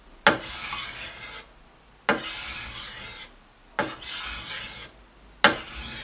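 Steel meat cleaver blade being sharpened on a whetstone: four strokes, each starting with a sharp click as the edge lands on the stone and followed by about a second of rasping scrape.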